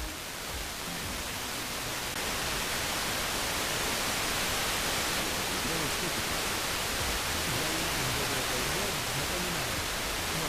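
FM radio receiver hiss: the last of a broadcast breaks up into static as the receiver is tuned off the station, and about two seconds in it settles into loud, steady interstation noise. Faint traces of a weak broadcast wander beneath the hiss later on.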